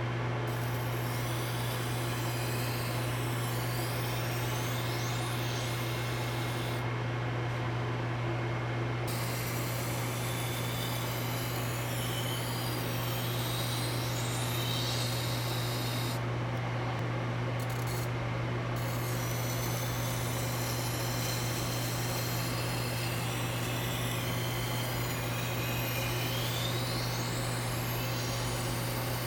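A workshop power tool running with a steady low hum, with scraping and rubbing of work held against it that comes and goes.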